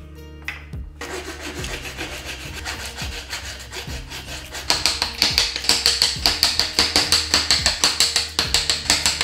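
Hand saw cutting through a wooden block held in a vise, a rasping back-and-forth that becomes louder, quicker strokes, several a second, from about halfway.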